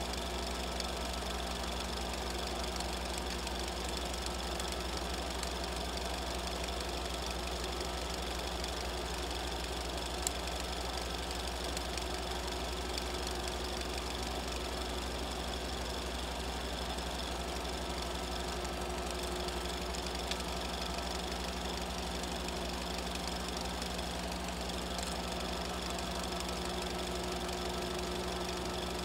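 A small machine running steadily, a constant mechanical hum with a fast, even knocking rattle and several fixed tones that never change.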